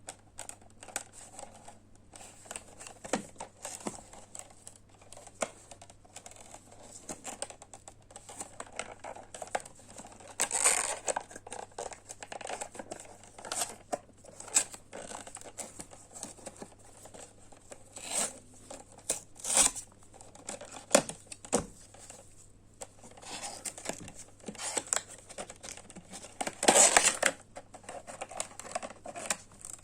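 Hands unpacking a boxed USB-C charger: packaging crinkling and tearing, with irregular clicks and taps as the box and its contents are handled. The loudest rustles come about a third of the way in, again around two-thirds, and near the end.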